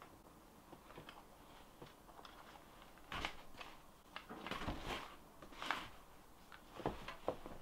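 Clothing rustling and soft scrapes and small knocks close by, from a person bending down to search the floor for a dropped item. It is faint at first, with a few light ticks, and turns into a run of short rustling bursts from about three seconds in.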